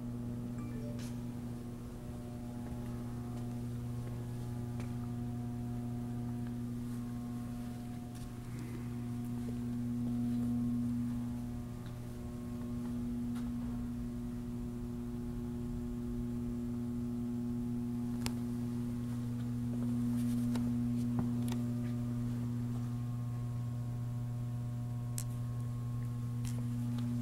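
Steady low electrical mains hum with a few faint overtones and occasional faint clicks.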